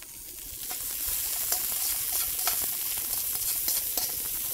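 Shrimp and vegetables sizzling in a hot wok while being tossed with metal tongs, which tick and scrape against the pan. The sizzle swells about a second in.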